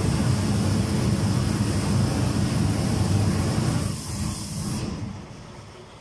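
Vacuum ironing table's suction blower running with steam hissing from a steam iron. The low rumble falls away about four seconds in, and the hiss stops suddenly about a second later.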